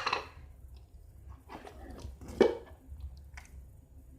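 Wet squishing and dripping of slime mixed with water being shaken and handled in a container, with a few short squelches and one much louder noise about two and a half seconds in.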